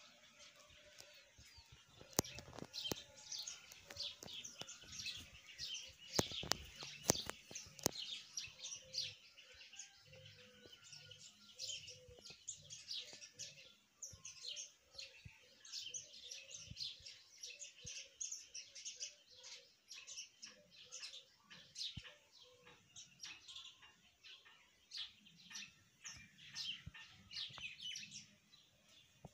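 Rapid, high-pitched bird chirping: many short chirps in quick succession, with a few sharp knocks in the first several seconds.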